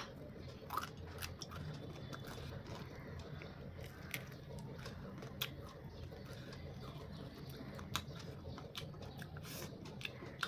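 A person eating, with faint scattered clicks and crunches over a low steady room hum.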